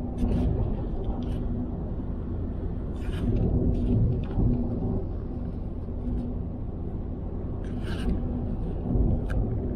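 Car driving at motorway speed, heard from inside the cabin: a steady low rumble of tyres and engine with a held hum, and a few short ticks or rattles scattered through.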